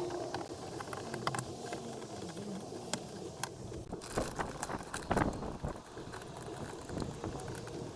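Scattered light clicks, taps and rustling from hands handling parts of a car door during repair work, with a cluster of sharper clicks about four to five seconds in.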